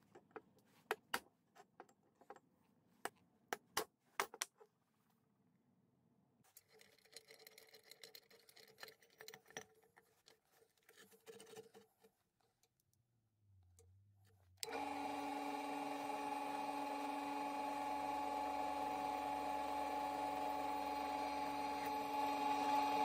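A few sharp taps and clicks, then light metal handling clatter; about two-thirds of the way through, a bench drill press starts suddenly and runs steadily with a whining hum as it drills into a metal pipe clamped in a vise.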